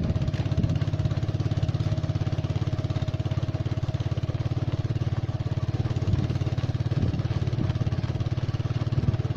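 A vehicle engine running steadily at low speed, a fast even pulse with no change in pitch.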